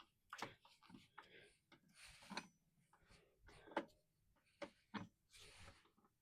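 Faint scattered clicks, light knocks and rubbing as small parts are handled and fitted by hand. The band saw is not running.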